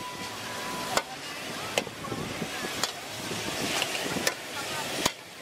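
Pork slices sizzling in oil in a wok while a metal ladle stirs them, scraping the pan and striking it in several sharp clinks.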